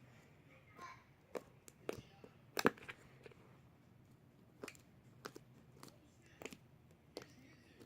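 Sticky glue slime being squeezed and pulled by hand, giving irregular sharp clicks and pops, about ten of them, the loudest a little under three seconds in.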